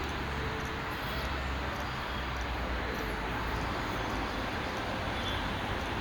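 Steady outdoor city-park ambience: a constant low rumble of distant traffic with faint high bird chirps now and then.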